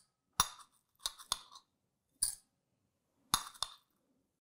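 A metal spoon clinking against glass, about six short, sharp clinks at irregular intervals, as spermaceti substitute is scooped from a glass jar into a glass beaker.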